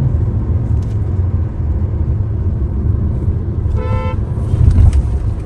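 Inside-cabin drone of a 2024 Hyundai Creta's 1.5-litre naturally aspirated petrol engine and road noise while driving, which a passenger finds diesel-like for a petrol engine. A vehicle horn toots once, briefly, about four seconds in.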